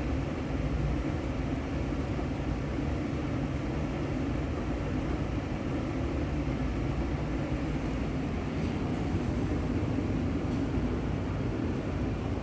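Miele Softtronic W2241 front-loading washing machine running steadily, a constant mostly low-pitched mechanical sound with no breaks.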